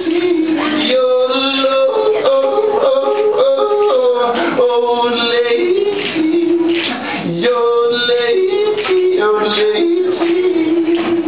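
A man yodeling, his voice leaping back and forth between low and high notes in quick steps and ending on a long held note.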